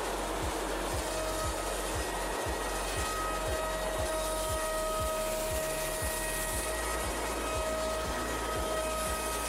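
AXYZ Woodworker CNC router spindle running and cutting through a wood sheet: a steady whirring noise with a steady high whine that comes and goes.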